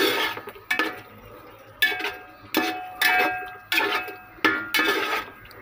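A metal spoon clanking against the side of a metal cooking pot while stirring potatoes in masala: repeated sharp strikes, each ringing briefly, about one every half second to second.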